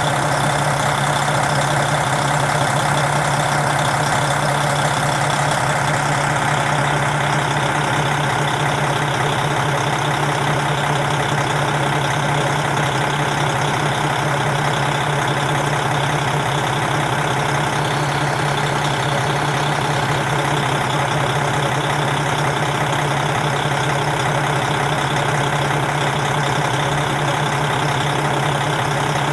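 KiHa 40 diesel railcar's engine idling steadily.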